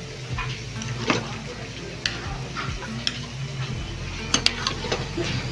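A metal spoon stirring and scraping food that sizzles in a frying pan, with a few sharp clicks of spoon against pan, two of them close together near the end.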